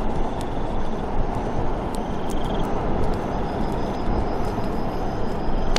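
Steady rushing forest wind, with faint short high chirps and scattered ticks over it.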